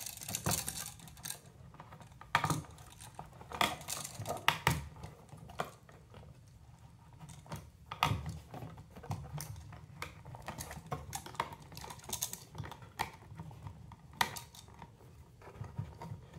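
Irregular clicks, light knocks and rustles of electrical wires and wire connectors being folded into a plastic electrical box as a duplex outlet is pushed in by hand.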